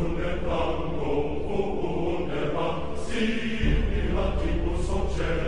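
Background music with chanting, choir-like voices.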